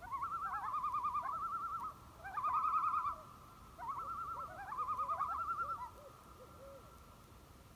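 A bird's wavering, trilled call, given in several phrases over about six seconds and then dying away.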